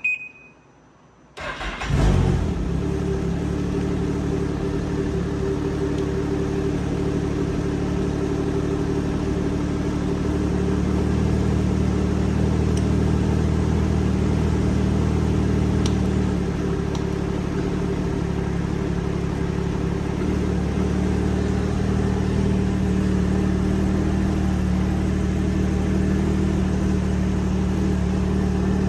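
A Ski-Doo snowmobile engine starts, after a short electronic beep, and then runs at a steady idle, its level rising and falling a little partway through.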